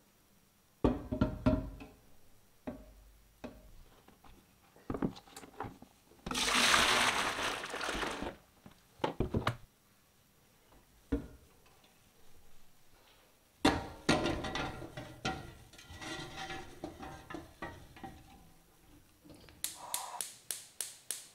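Aluminium stockpot and plastic brewing bucket knocking and clattering in a steel kitchen sink, with about two seconds of rushing liquid as the wort is poured. Near the end comes a quick run of sharp clicks, typical of a gas hob's igniter.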